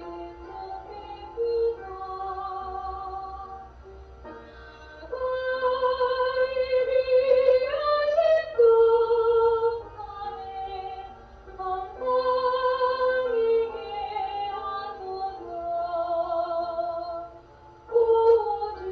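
A woman singing a slow gospel praise song, holding long notes with vibrato in phrases over a soft musical accompaniment.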